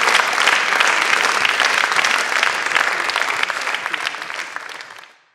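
Applause from many people clapping, fading out gradually and ending in silence near the end.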